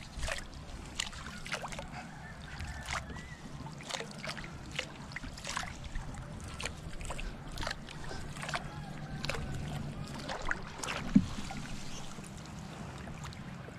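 Water splashing and dripping as a wet fishing net is fed over the side of a wooden outrigger canoe: a string of short splashes and taps every half second or so, with one sharper knock near the end.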